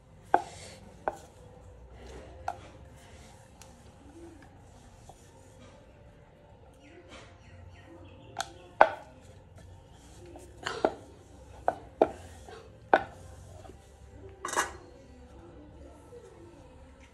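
Wooden rolling pin knocking and clacking against a round wooden rolling board as poori dough is rolled out. About ten sharp, irregularly spaced knocks stand out over a faint steady background.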